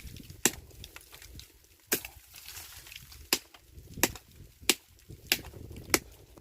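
Chopping into a tree's trunk to take off its bark. Seven sharp blows, at first about a second and a half apart, then from the middle on about one every two-thirds of a second.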